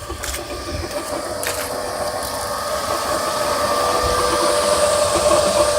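Saturn Vue 3.0 V6 engine running with a steady whine that grows louder, which the owner puts down to a failing water pump.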